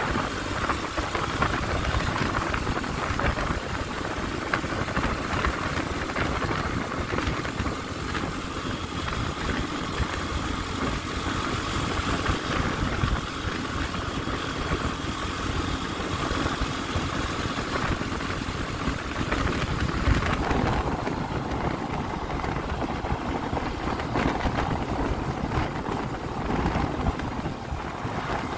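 Yamaha Crypton S moped's small single-cylinder four-stroke engine running steadily at cruising speed, mixed with wind rushing over the microphone. The high hiss eases off about twenty seconds in.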